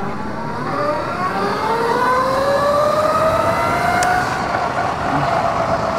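Electric dirt bike's motor whining as it accelerates, its pitch rising steadily for about three seconds and then levelling off, with wind and road noise rushing past.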